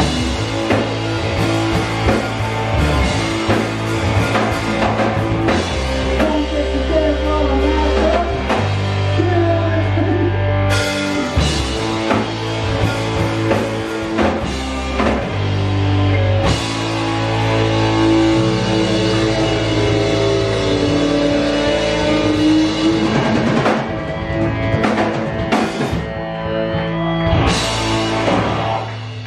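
Live rock band playing an instrumental passage on electric guitars and drum kit, amplified through the PA.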